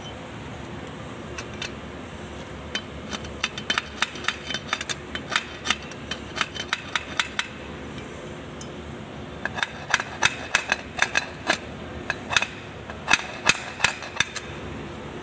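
Irregular sharp metallic taps and clinks, several a second, from a tool working on a tractor's propeller shaft coupling at the drive case. A run of taps starts a few seconds in, pauses briefly, then comes back louder.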